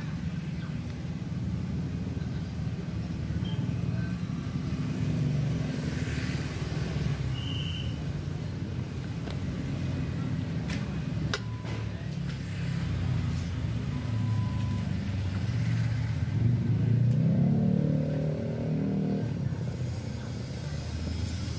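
Motor vehicle engines running past on the street, a steady low hum. One engine grows louder and higher about three-quarters of the way through.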